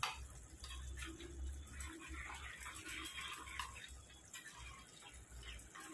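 A little water being added to ground spice powders in a small steel bowl and stirred in with a spoon: faint wet swishing and scraping, with a light clink of the spoon against the bowl right at the start.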